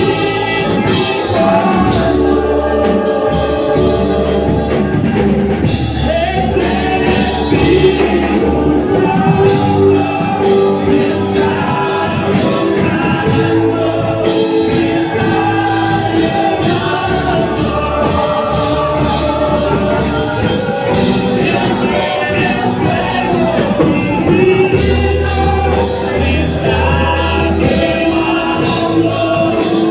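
Gospel worship music: a group of voices singing over a band with steady bass notes and drums.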